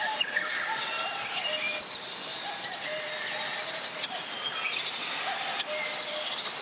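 Mountain valley stream flowing steadily, with several high whistled tones that come and go over it.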